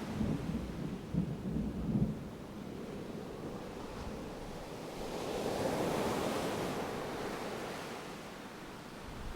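Distant thunder rumbling low for the first two seconds or so, over ocean surf. Then a wave swells and washes in, loudest about six seconds in, and fades away.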